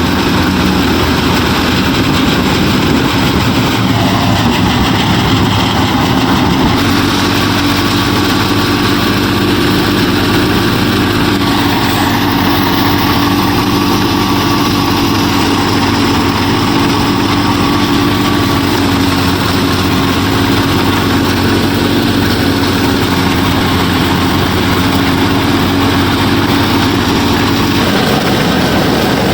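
Motors of a DIY miniature combine harvester running steadily, with a constant mechanical hum. The sound shifts about seven seconds in and again near the end.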